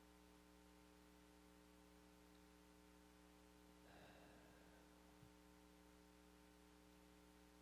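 Near silence: a low, steady electrical mains hum, with a faint brief noise about four seconds in.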